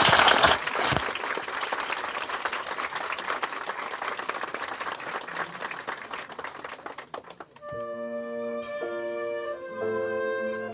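Guests applauding, the clapping thinning and fading over about seven seconds. About eight seconds in, instrumental music begins with sustained notes.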